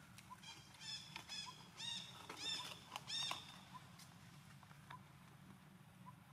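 A quick run of short, high-pitched animal calls, each rising and falling in pitch, between about one and three and a half seconds in.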